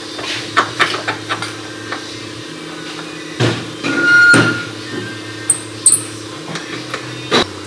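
Hand tools clinking and knocking against metal as they work on the vehicle's rear shock mounts: a run of sharp clicks and knocks, with one louder, longer burst a little past halfway, over a steady low shop hum.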